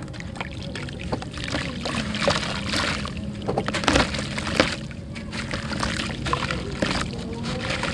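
A soaked lump of red dirt being squeezed and crumbled by hand over a basin of water: a dense run of wet crackles and crunches, with crumbs splashing and trickling into the water. It grows busier from about a second and a half in.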